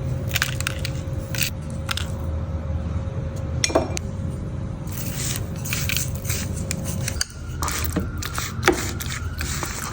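Scraping, rubbing and light knocking of objects being handled, with scattered clicks over a steady low hum. A faint steady tone in the hum stops about seven seconds in.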